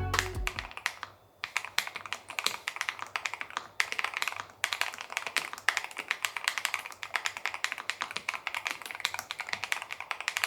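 Fast typing on a Lofree Flow 2 low-profile mechanical keyboard: a quick run of key clicks broken by a few brief pauses.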